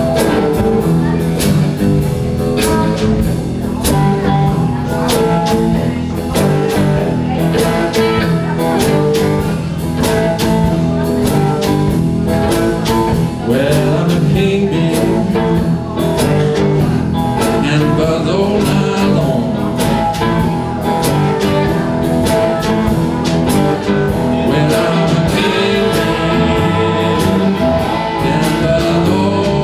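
Live blues band playing a shuffle on homemade electric box guitars, one with an oil-can body, over a drum kit with a steady beat.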